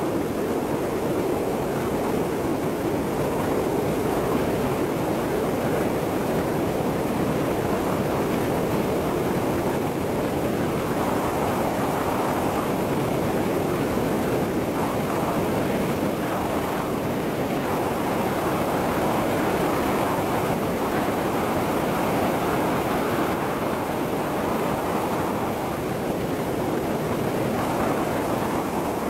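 Steady rush of wind and road noise from travelling at highway speed.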